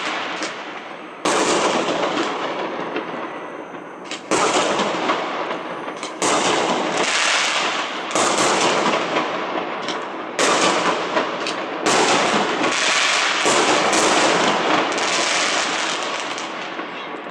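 Aerial firework shells bursting overhead in a series of loud bangs, about one every two seconds. Each bang is followed by a long fading rumble as it echoes off the surrounding apartment blocks.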